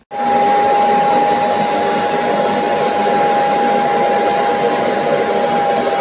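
Kärcher Puzzi 10/1 spray-extraction cleaner's suction motor switched on and running steadily with a high whine. There is no spray pump sound: the owner says the water pump does not come on, though suction works.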